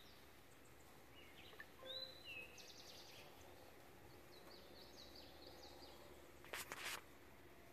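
Faint songbird chirps and short whistles over quiet outdoor background, then a brief burst of noise about six and a half seconds in.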